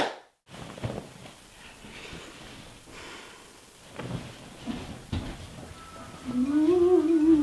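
A person's voice making a long, wavering "oooh" hum, like a mock ghost moan, starting about six seconds in. Before it there is only faint rustling and a few soft knocks.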